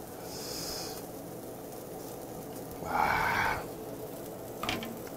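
Chicken skewers sizzling quietly over a tabletop charcoal grill, with a brief louder breathy hiss about three seconds in.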